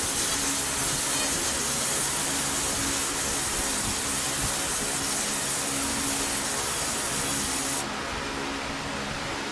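70 W SPI fiber laser marking head deep-engraving copper: a steady hiss as the pulsed beam ablates the metal, over a faint low hum. About eight seconds in, the highest part of the hiss cuts off suddenly, leaving a softer hiss.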